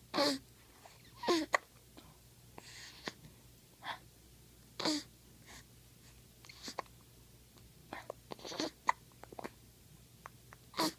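Repeated hiccups: short, sharp gulping bursts at irregular intervals, about five loud ones with a few fainter ones between.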